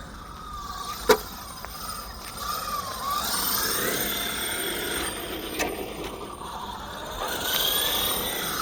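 1/5 scale RC car's motor whining, its pitch rising and falling with the throttle as it drives over rough ground. A sharp knock about a second in is the loudest moment.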